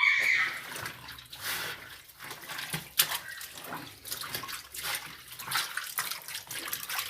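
Water splashing and sloshing irregularly inside the tub of an LT13B top-loading washing machine.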